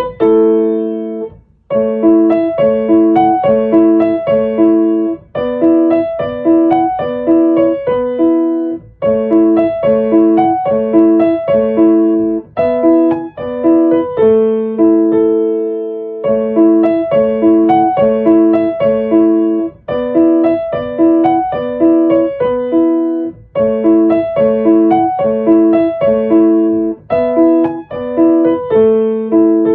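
Background piano music: a gentle tune of short repeated note patterns in phrases a few seconds long.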